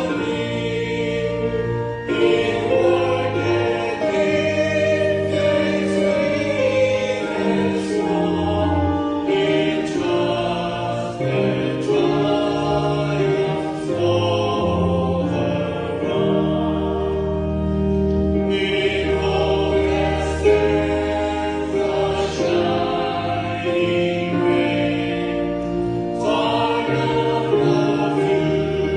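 A church congregation singing a slow hymn together with accompaniment, holding sustained notes.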